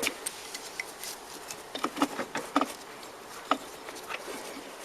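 Metal parts being handled: several short clinks and knocks with a brief ring, bunched near the middle with one more a second later, over a steady faint hiss.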